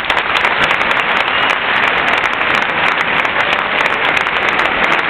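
Large crowd applauding: dense, steady clapping throughout.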